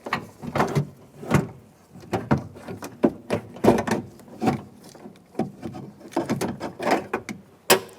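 Irregular clicks, knocks and rattles of metal and plastic parts being handled inside a car door as a lock rod is unclipped from the door latch and the latch is worked free. A sharp snap comes near the end.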